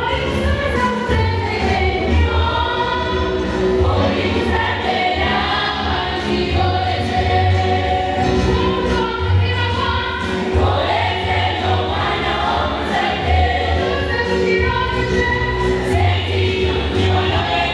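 A school choir of students singing together, led on a microphone, with a low beat recurring about every second and a half underneath.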